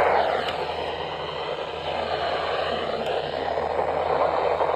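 Steady hiss of radio static from a weather radio receiver. It drowns out the warning broadcast, a sign the station's signal has dropped out.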